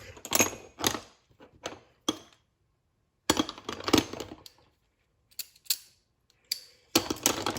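Metal 1/4-inch drive hand ratchets being handled and set down: a series of sharp clicks and clinks, with a quick run of clicks a little past the middle and a louder group near the end.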